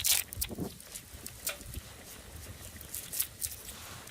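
Wood fire crackling in a wood-burning grill, with scattered sharp pops at irregular intervals.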